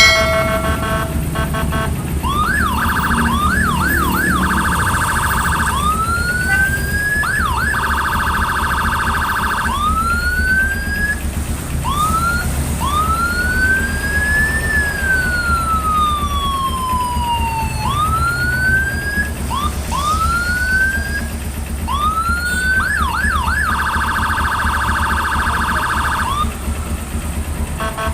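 Electronic siren tones from a Whelen Alpha siren module, switching between patterns: fast yelp sweeps, stretches of rapid pulsing trill, short rising whoops, and near the middle one slow wail that rises for a couple of seconds and falls for about three. A steady low hum runs underneath.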